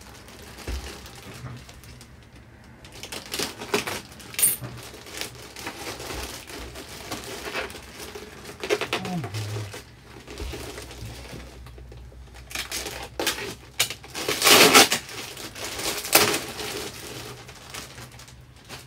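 Plastic bag and bubble wrap crinkling and rustling in uneven bursts as a wrapped item is pulled out and unwrapped by hand, loudest in two bursts near the end.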